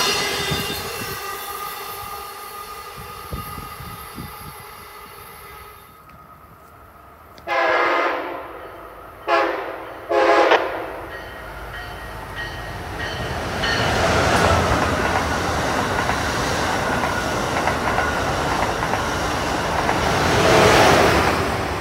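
An Amtrak passenger train rolls away and fades out. An approaching Acela Express trainset then sounds its horn in three blasts, the first the longest, and passes at speed, its rumble building to a peak near the end.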